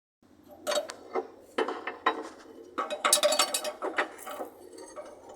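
Irregular metallic clicking, clattering and a few sharp knocks from parts at an electric bus's air compressor connection, over a faint steady low hum.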